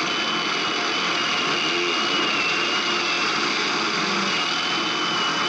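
A noise-rock band playing a wall of distorted noise: a steady, dense roar with a thin high whine held through most of it.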